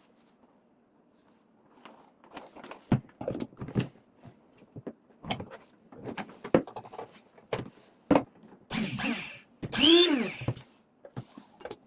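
A run of separate clicks and knocks of hard objects being handled, with a short creaking squeak about ten seconds in. No motor is running.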